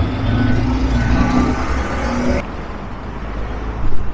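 A motor vehicle passing close on a snow-covered road, its engine and tyre noise loud, cutting off suddenly about two and a half seconds in; a low rumble remains after.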